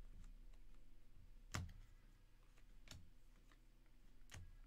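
Near silence with three faint clicks, roughly one every second and a half, the first the loudest, from Panini Prizm trading cards being flipped through in the hand.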